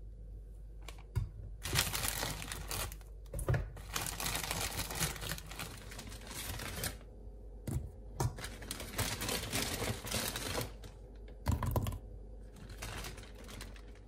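Cauliflower florets and Brussels sprouts tumbling into a metal cooking pot in several rattling bursts, with a few sharp knocks and a plastic vegetable bag crinkling.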